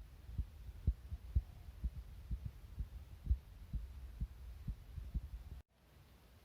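A steady series of dull, low thuds, about two a second, eleven or so in all, stopping abruptly about five and a half seconds in.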